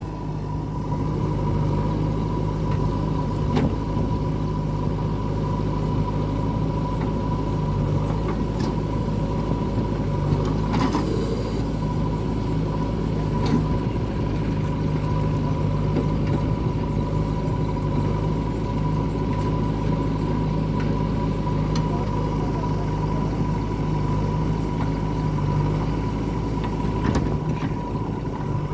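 Diesel engine of heavy digging machinery running steadily, with a constant high-pitched whine over it and a few short knocks.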